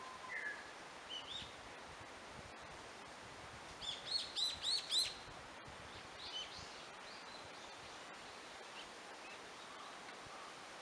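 Wild songbirds in a forest, calling in scattered high chirps; the loudest is a quick run of five or six rising-and-falling notes about four seconds in, over a steady background hiss.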